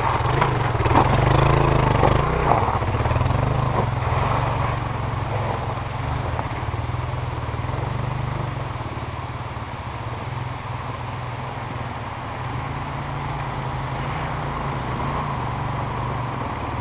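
Dual-sport motorcycle engines running: one bike passes close early on and its engine fades as it rides off up the trail, while a low, steady engine note carries on underneath.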